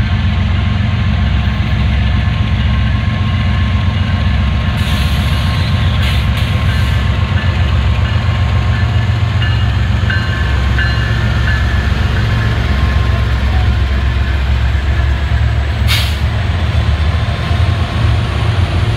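A consist of diesel freight locomotives passing close by, their engines running with a loud, steady low rumble. A brief hiss comes about five seconds in and a short sharp noise near the end.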